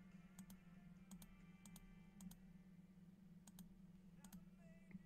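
Faint computer mouse clicks, coming in quick pairs about six times at uneven spacing, over a low steady electrical hum.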